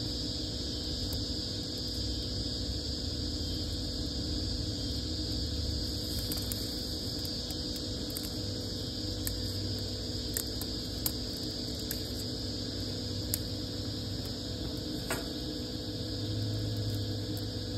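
A steady machine-like hum with a constant high whine, with a few sharp crackles from a small fire of dry twigs and kindling in the second half.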